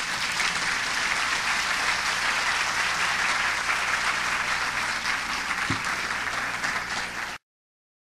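An audience applauding steadily in a large hall, ending in an abrupt cut to silence about seven seconds in.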